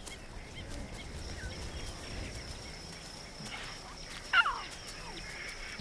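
Wildlife ambience with a steady high-pitched drone and a few faint short calls, and one louder call falling in pitch about four seconds in.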